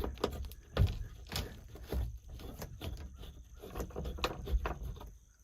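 Irregular soft thumps and knocks, like handling noise or footsteps.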